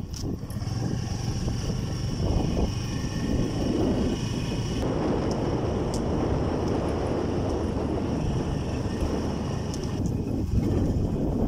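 Motorcycle engine running as the bike rides down a rough concrete hill road, recorded from on the bike. The sound shifts abruptly about five seconds in and again near the end.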